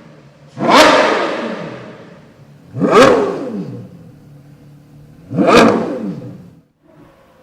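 Porsche Carrera GT's 5.7-litre V10 through a GMG aftermarket exhaust, blipped three times: each rev shoots up sharply and falls back. Near the end it drops to a quieter idle.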